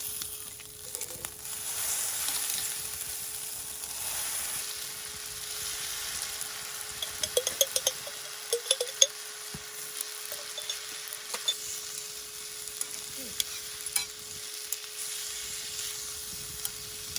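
Food sizzling in a pan over a campfire, with a utensil clicking against the pan several times, most densely around the middle.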